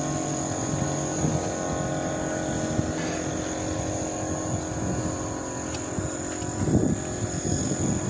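Jet airliner flying low overhead, a steady engine drone carrying several constant tones and a high whine.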